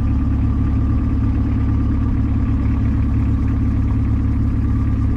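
Wooden long-tail boat's engine running steadily while the boat is under way, a constant deep drone.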